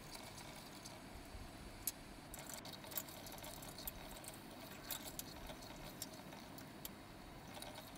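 Spoon clinking and scraping against a cooking pot as goat trotters are stirred and fried in masala, a few scattered clicks over a faint steady hiss.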